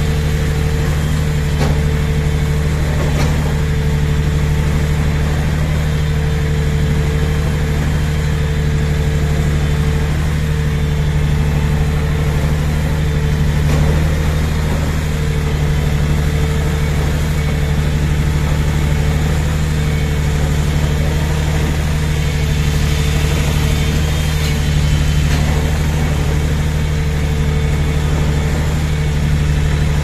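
Boom-mounted shotcrete sprayer running while spraying concrete onto mesh: a steady machine drone with a constant hum and an even hiss.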